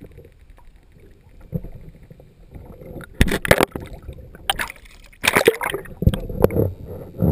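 Water sloshing and bubbling against an underwater GoPro camera housing, muffled and low at first. From about three seconds in, loud bursts of crackling splash and bubble noise come in several clusters.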